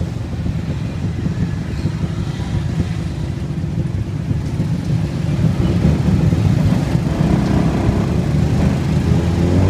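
Tuk-tuk engine running at idle with a fast, even low chugging, surrounded by motorbike and car traffic. The engine sound gets louder about halfway through, and its pitch starts to climb near the end as it begins to rev.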